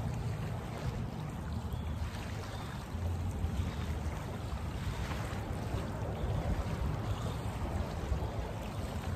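Small waves washing steadily onto a sandy beach, with a low rumble underneath.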